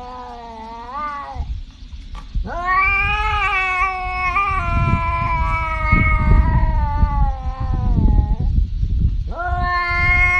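Tabby cat yowling in long drawn-out caterwauls. One call ends about a second in, a second lasts about six seconds, and a third starts near the end.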